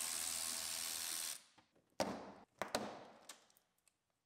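Cordless power ratchet running steadily as it spins out a fastener at the front wheel opening, stopping abruptly about a second and a half in. A few sharp clicks and knocks follow.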